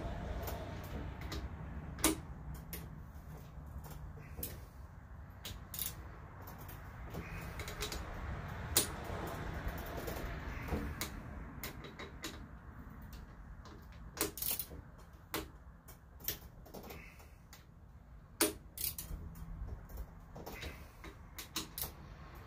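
Scattered, irregular clicks and knocks of hand work on metal parts and tools, a few sharp ones standing out, over a low steady hum.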